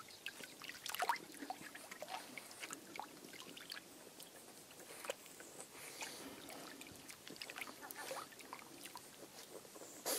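Faint, irregular small splashes and drips of shallow seawater as a French Bulldog wades and pokes its nose into the water among seaweed. There is one louder, sharper click right at the end.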